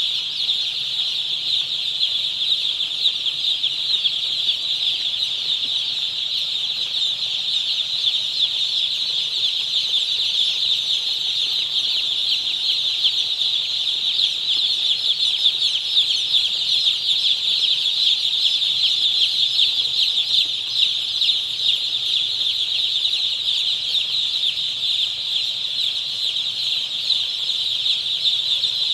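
A flock of thousands of day-old broiler chicks peeping all at once, just delivered and spread out on the house floor: a dense, steady, high-pitched chorus of overlapping cheeps with no let-up.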